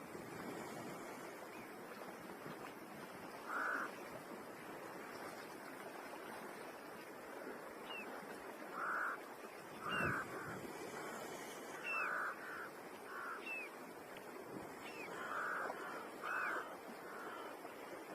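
Birds giving short, harsh, crow-like caws, about eight in all and mostly in the second half, over a steady rushing noise.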